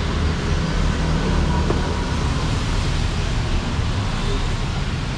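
Steady roadside traffic noise: a continuous low rumble of passing vehicles.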